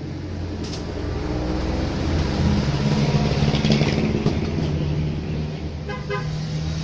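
A motor vehicle's engine running nearby, its pitch rising a little midway, with a brief horn toot about six seconds in.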